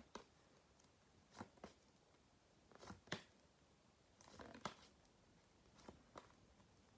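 Near silence with faint, scattered clicks and rustles of paper flashcards being handled and flipped, one every second or so.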